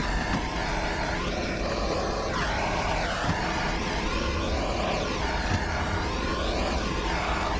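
Blowtorch flame roaring steadily while it is swept back and forth over a wooden beehive part to scorch off propolis, its tone rising and falling with each pass.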